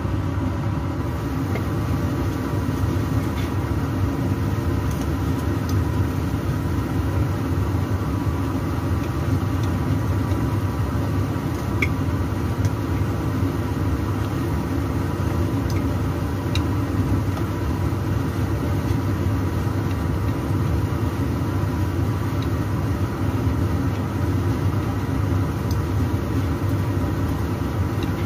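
A steady low hum with a few faint steady tones in it, like a running motor, carries on without change. A few light clicks of chopsticks against the frying pan come through, one of them about twelve seconds in.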